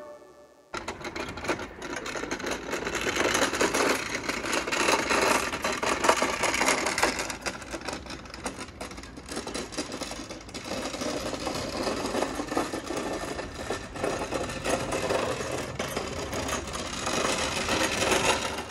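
Electric beer-crate kart driving on asphalt: its hoverboard hub motors whirr and its small wheels rattle over the ground, in a dense mechanical clatter that begins abruptly about a second in and swells and fades as it speeds up and slows.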